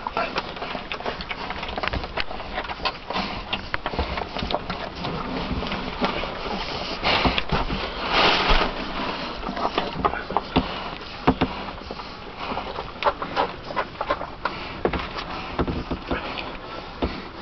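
German Shepherd puppies nursing and snuffling, with many short clicks and scuffs throughout and a louder rustling rush about seven to nine seconds in.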